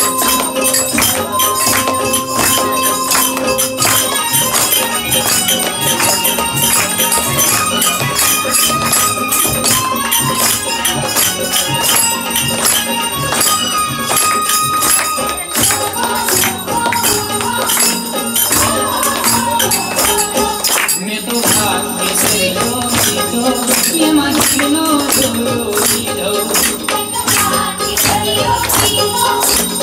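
Devotional aarti music: a dense, fast, steady percussion beat with held melody notes, joined by a wavering singing voice past the middle.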